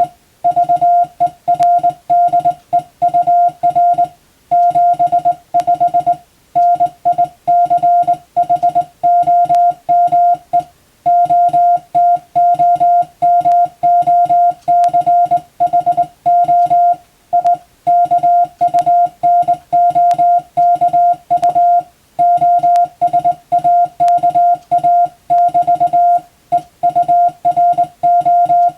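Morse code sent as CW: a single steady mid-pitched beep keyed on and off in fast dots and dashes, with slightly longer breaks between words every few seconds. It is sending practice for radiotelegraph operator exams and amateur radio reception.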